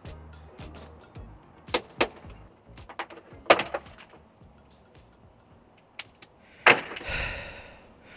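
Plastic retaining clips snapping loose, a few sharp cracks spread out, as a Nissan 370Z's side skirt panel is pried off the sill with a plastic trim tool. The last and loudest snap comes near the end and is followed by a brief rush of noise.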